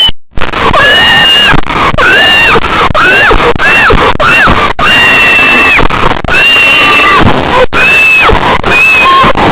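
Loud, distorted screaming: a string of high-pitched shrieks, each rising and then falling away, following one another with only short breaks over a harsh noisy haze. It starts just after a brief cut-out.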